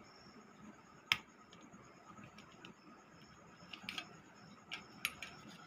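Small clicks and taps of a battery and wires being handled and pressed into a plastic torch housing. One sharp click comes about a second in, and a few lighter clicks near the end.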